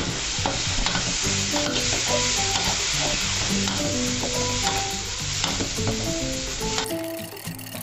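Shrimp and holy basil sizzling in a hot wok, just off the heat, as a spatula stirs and scrapes, with scattered clicks against the pan. The sizzle cuts off suddenly about seven seconds in, leaving faint background music.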